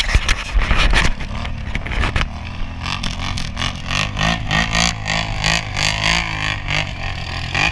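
Several ATV engines revving up and down as the quads circle in the sand, the pitch rising and falling again and again. A rough burst of knocks and rushing noise in the first second or so is the loudest part.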